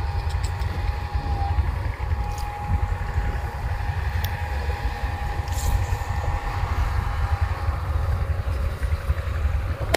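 Wind buffeting an outdoor microphone, a steady fluttering rumble, under a thin steady whine and a few light clicks.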